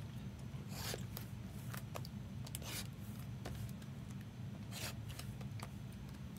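Plastic shrink wrap on a trading-card box being slit and rubbed by hand: short scratchy swishes, about one a second, over a steady low hum.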